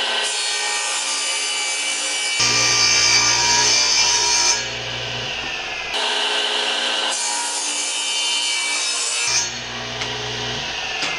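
Table saw running and ripping half-inch MDF into narrow strips: a steady motor-and-blade whine mixed with the noise of the blade cutting. The sound jumps abruptly a few times.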